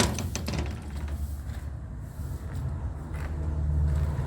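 A motor vehicle's engine running close by, a steady low rumble that grows louder toward the end, with a few sharp clicks at the very start.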